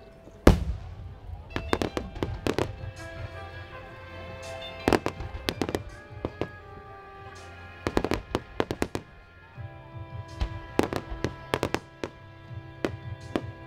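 A starmine fireworks barrage: shells bursting in quick succession as sharp cracks and booms, the biggest about half a second in, over music.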